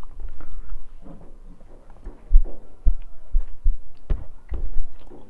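Close eating sounds: chewing and mouth noises with fingers working rice on a steel plate, broken by a string of irregular low thuds.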